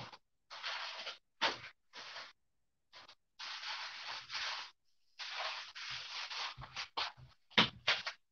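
A run of rubbing and scraping noises in short spells that start and stop abruptly, with a few sharp clicks near the end.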